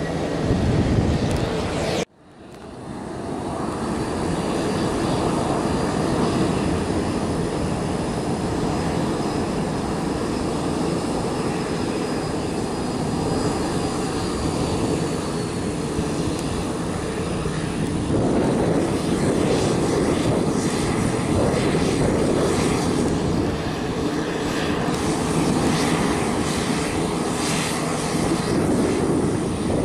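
Jet engines of a Boeing 737-800 running on the ground: a steady rush with a high turbine whine that slowly falls and fades. From about 18 s in, a Pilatus PC-12's single turboprop engine and propeller take over, louder and heavier, with a fast flutter.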